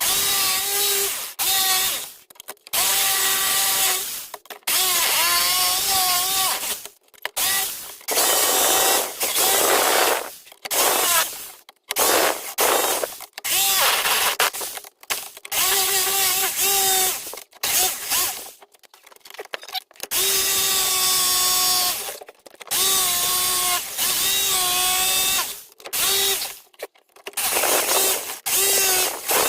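Electric drill boring holes in wood in repeated short bursts, its motor pitch sagging and wavering as the bit loads up, with brief pauses between bursts.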